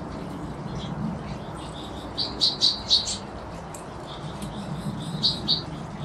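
Small finches chirping: a quick run of about four loud chirps a little past two seconds in, and two or three more near the end, over softer scattered chirps.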